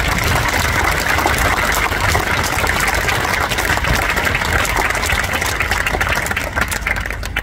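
Audience applauding, many people clapping steadily, stopping abruptly near the end.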